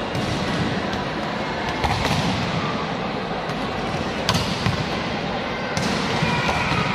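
Volleyballs being struck and slapping onto the court during warm-up, a few sharp smacks that echo through a large sports hall, over a steady background hubbub.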